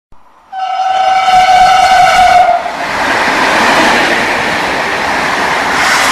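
A train horn sounds one long steady note for about two seconds. Then comes the steady noise of a train running past along the rails.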